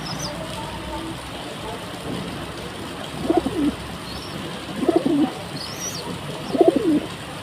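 Pigeons cooing: three low, throaty coos about a second and a half apart, with faint high chirps of small birds now and then.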